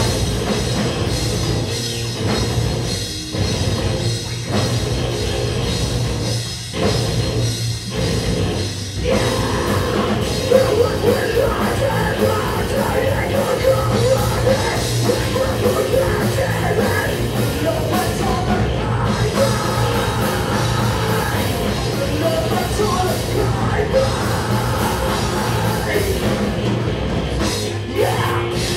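Post-hardcore band playing live, with distorted electric guitars and a drum kit. For the first nine seconds or so the band plays stop-start hits with short gaps between them, then drives on without a break, and a vocalist screams into the microphone over it.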